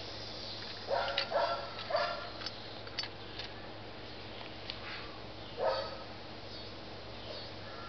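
A dog barking in short bursts, a cluster about one to two seconds in and another a little before six seconds.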